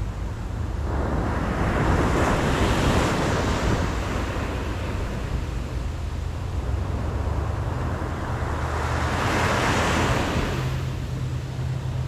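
Atlantic Ocean surf: a wave breaks and washes up the beach about two seconds in, and another rises and breaks near the end, over a steady low rumble.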